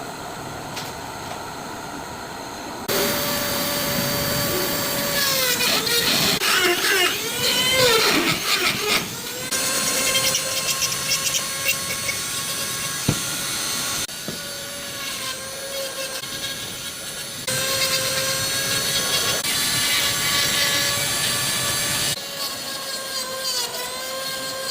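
An electric power sanding tool running against carved wood with a steady motor whine. The pitch dips and wavers as it is pressed into the work, and the level jumps abruptly several times.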